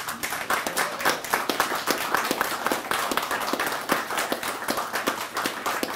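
Applause from a small group: many separate hand claps in a quick, uneven stream.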